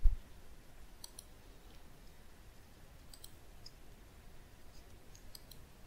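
Faint computer mouse clicks, three quick pairs spaced about two seconds apart, after a brief low thump at the very start.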